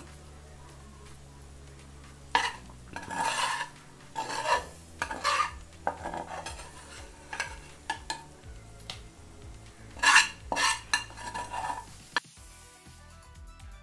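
Metal slotted ladle stirring and scraping rice and prawns in a large aluminium pot, in irregular strokes with clinks against the pot wall, loudest about ten seconds in. Background music comes in near the end.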